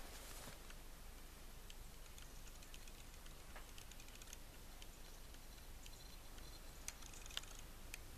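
Quiet background with faint, scattered clicks and ticks, a few slightly stronger near the start and again near the end.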